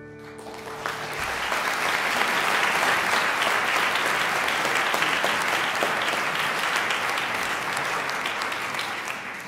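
Concert audience applauding at the end of a solo piano piece, with the grand piano's final chord still dying away as the clapping begins. The applause builds within the first second or two, holds steady, then thins out near the end.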